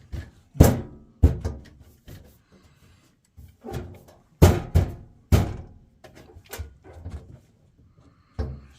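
A string of sharp knocks and clunks, about seven loud ones at uneven intervals, each ringing briefly. They come from parts of the Biasi combi boiler being handled and fitted back in place during reassembly.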